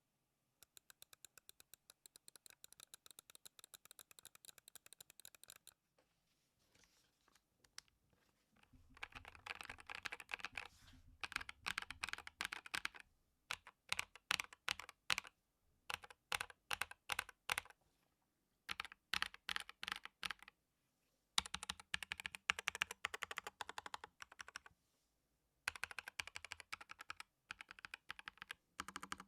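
Typing on a NuPhy Air 75 V2 low-profile mechanical keyboard with factory-lubed Aloe linear switches. The keyboard starts with a fast, even run of quieter clicks for about five seconds. After a short pause, typing comes in louder bursts of rapid keystrokes with brief breaks between them.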